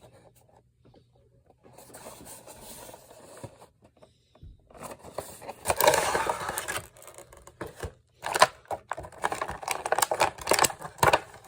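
Action-figure packaging being handled and opened: rustling, scraping and crackling of cardboard and plastic in uneven spells, loudest a little past the middle, with sharp crackles and clicks near the end.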